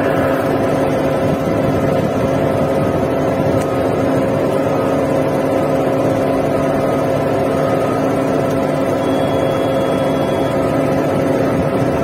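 Putzmeister 49 m truck-mounted concrete pump running steadily, its engine and hydraulic system giving a constant drone with a steady hum.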